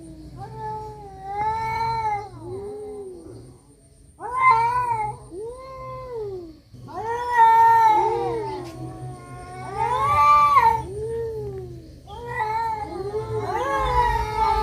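Two cats caterwauling at each other in a fight: long, wavering yowls that rise and fall in pitch, one after another, the two voices overlapping at times. These are the drawn-out threat calls of a cat standoff.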